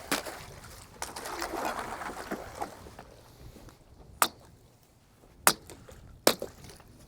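Water sloshing for a couple of seconds, then three sharp knocks about a second apart, as ice is broken up on the cattle's water.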